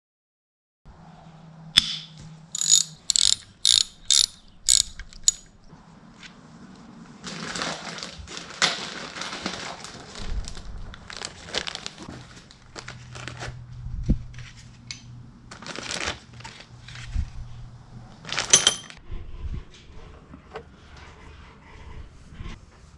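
Ratchet wrench clicking in a run of about seven quick strokes, then scattered clicks and rattles of tools and metal parts, as bolts are worked loose to take the cylinder heads off an LS1 V8.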